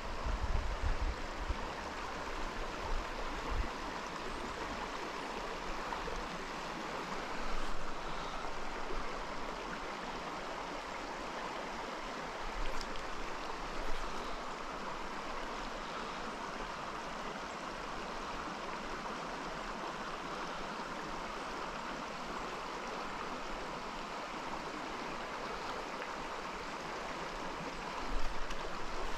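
Trout stream water running steadily, an even rush with a few faint clicks partway through.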